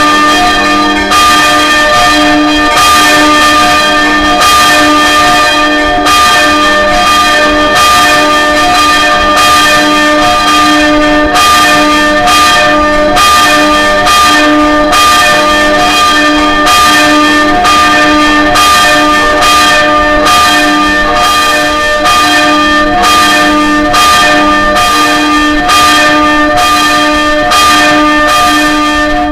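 Church tower bells ringing loudly, struck again and again about once a second, each stroke ringing on into the next so the tones hang over one another.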